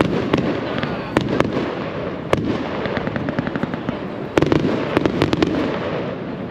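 Fireworks going off all around: a continuous crackle with many sharp bangs and pops, a quick even run of rapid cracks about three seconds in, and a louder burst a little after four seconds.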